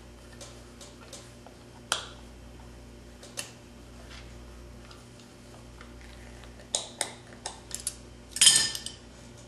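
Handling noises from gloved hands working a deer cape: a few scattered sharp clicks, then a quick cluster of clicks and scrapes near the end. The loudest is a brief rustling scrape. A low steady hum runs underneath.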